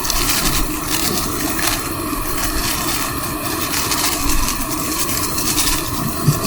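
Camping gas stove burner running with a steady roar, with intermittent rustling over it.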